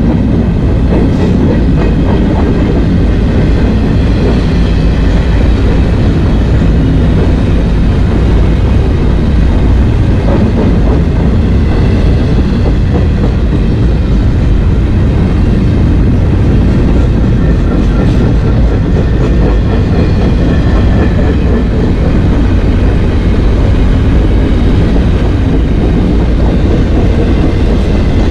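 Freight train cars rolling past at close range: a loud, steady rumble of steel wheels on rail, with faint high steady tones over it.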